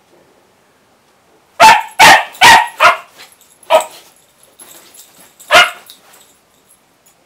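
Terrier-mix puppy barking in play: a quick run of four barks about a second and a half in, then two single barks spaced out after it.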